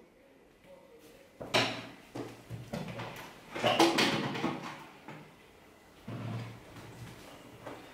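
A few sudden bumps and rustles, about one and a half, four and six seconds in, from a person moving about out of view and handling objects.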